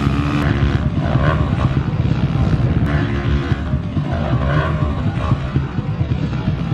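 Pit bike engines running hard on a motocross track, revving up and down.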